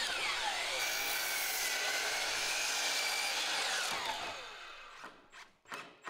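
DeWalt sliding compound miter saw cutting 2x10 lumber, its high motor whine sliding down in pitch as the blade winds down after a cut. The sound fades out about four seconds in.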